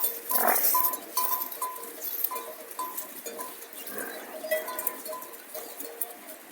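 Bells worn by a shepherd's flock ringing and clinking irregularly as the animals move, many short dings at uneven intervals.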